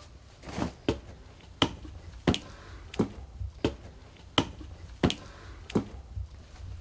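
Footsteps on a hard floor in a small room, about three sharp steps every two seconds.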